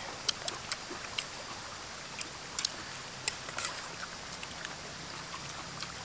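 River flowing steadily, with scattered small clicks and smacks from people eating squid and quail with their hands.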